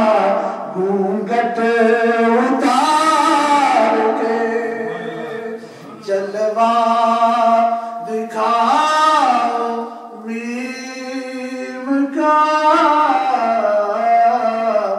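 A man singing a naat, an Urdu devotional poem in praise of the Prophet, unaccompanied through a microphone and PA. The long sung phrases have held notes that slide and waver, with short breaths between lines.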